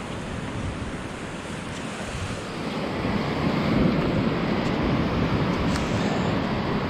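Baltic Sea surf washing onto the beach, with wind buffeting the microphone; the wash swells louder about three seconds in.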